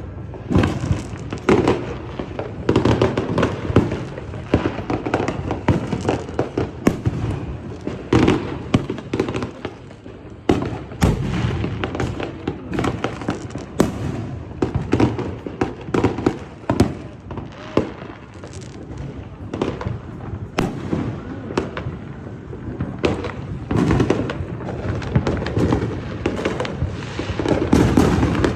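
Fireworks going off in a dense, irregular barrage: many sharp bangs and crackles, often several a second, over a low rumbling din.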